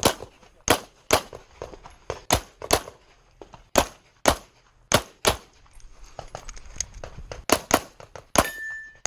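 Glock 34 9mm pistol fired rapidly in a competition stage: about a dozen sharp shots, mostly in quick pairs a fraction of a second apart, with short pauses between pairs. A brief ringing tone sounds about eight and a half seconds in.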